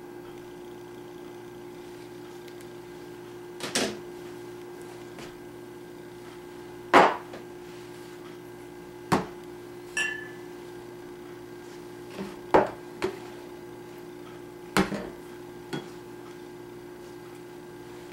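Things being handled and set down: about eight sharp knocks at uneven intervals, the loudest about seven seconds in, one of them about ten seconds in with a brief ring, over a steady low hum.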